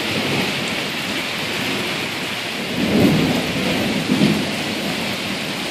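Heavy thunderstorm rain falling steadily, with rumbles of thunder swelling about three seconds in and again about a second later.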